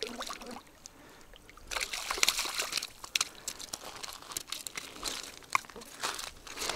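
Footsteps crunching over a loose stone and gravel shore. The crunching starts about two seconds in and goes on as a dense run of crackles.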